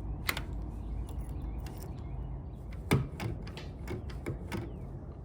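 Clicks and light rattles from a keypad door lock's mechanism being worked by hand with its key and handle, with two sharper clicks, one about a third of a second in and one about three seconds in.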